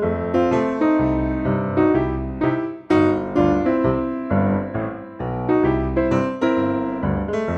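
Solo piano background music: a gentle melody of single struck notes, each ringing and fading before the next.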